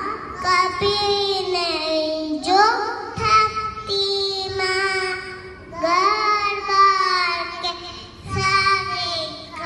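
A young girl singing solo into a microphone, in phrases of a few seconds with held notes that slide in pitch, separated by short pauses for breath.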